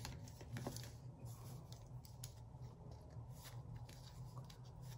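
Faint clicks and scraping of a small blade cutter working at plastic card packaging, the cutter gone blunt and not cutting cleanly. A low steady hum runs underneath.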